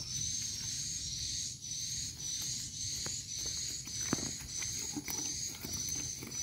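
An animal's high-pitched call, a short rising note repeated steadily about twice a second. A sharp knock about four seconds in, and a low rumble underneath.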